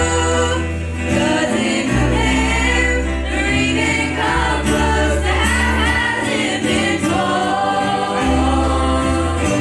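Gospel music performed live: a group of voices singing together over a steady bass line that moves note to note.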